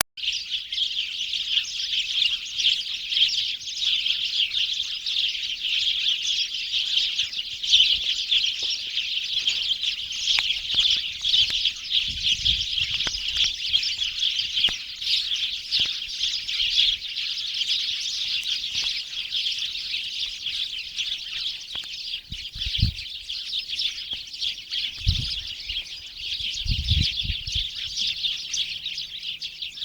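A flock of small birds chirping continuously in a dense, overlapping chatter. A few brief dull low thumps come in the second half.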